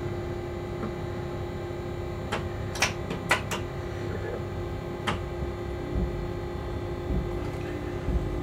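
Cab interior of an electric locomotive: a steady electrical hum with a low rumble underneath. A few sharp clicks sound between about two and five seconds in.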